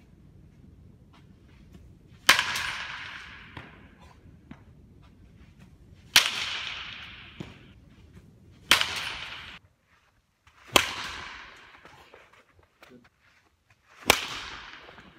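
A baseball bat hitting pitched balls in an indoor batting cage: five sharp cracks a few seconds apart, each trailing off in a ringing echo.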